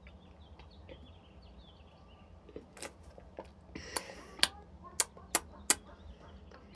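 Faint birds chirping, then a run of about seven sharp clicks and taps over the second half, with a short hiss about four seconds in.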